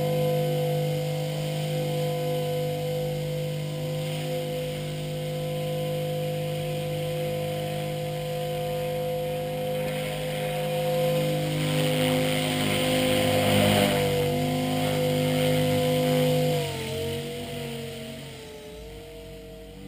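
Blade 450X electric RC helicopter's brushless motor and rotor whining at a steady pitch, then from about 16 seconds in the pitch dips and wavers and the sound grows quieter as the helicopter flies higher.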